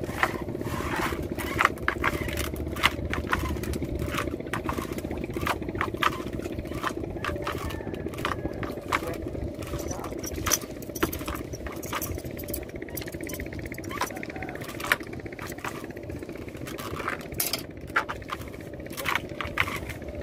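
Small boat engine running steadily, with frequent sharp clicks and knocks over it.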